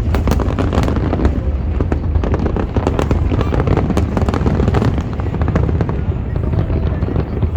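Fireworks display: a dense, continuous run of overlapping cracks and bangs over a steady low rumble of booms.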